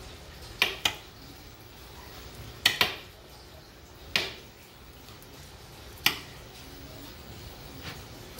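Sharp taps and knocks as a hand works a rack of ribs on a metal baking sheet. There are six in all: two quick pairs, then two single knocks about two seconds apart.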